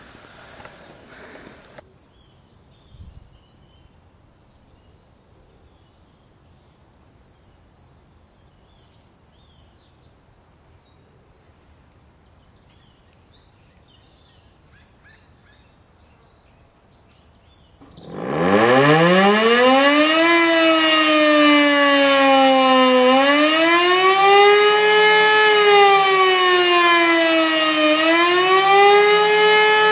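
Elektror E57 electric motor siren starting up about 18 seconds in, climbing from a low growl to a loud howl within a couple of seconds. It then wails slowly up and down in pitch, each rise and fall taking about five seconds.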